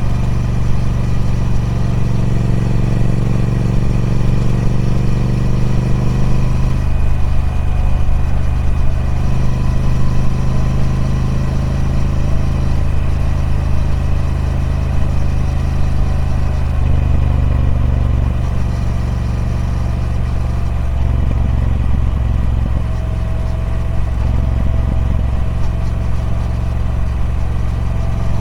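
A Triumph Speed Twin 1200's 1200 cc parallel-twin engine running through its stock exhaust. Its note holds steady for a few seconds at a time, then shifts to a new level several times.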